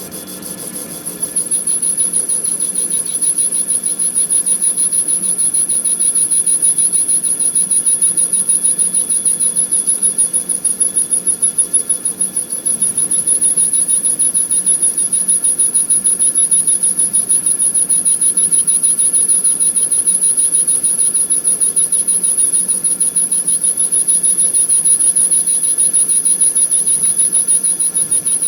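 Manual metal lathe turning a steel ring clamp, with a steady high-pitched squeal from the cut that grows louder about a second and a half in.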